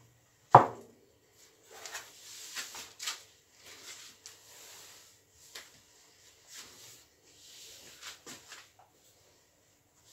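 A sharp knock about half a second in, like a cake board set down on a kitchen counter. It is followed by scattered rustles and light scrapes of hands, paper and a spatula working at the cake.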